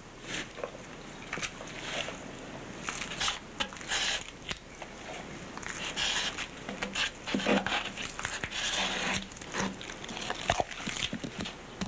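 A stick scraping and tapping irregularly in a cup as resin and catalyst are stirred together with Q-cell filler into a thick paste.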